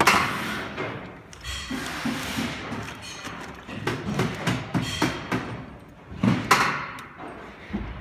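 Handling noise from electrical cables being sorted and plugged in inside a spa chair's metal base frame: irregular knocks and thumps with rustling in between, the loudest right at the start and about six and a half seconds in.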